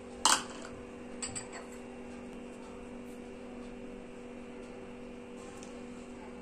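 Steady electrical hum, with a single sharp knock a fraction of a second in as a plastic measuring cup is set down on the counter, and a few faint clicks about a second later.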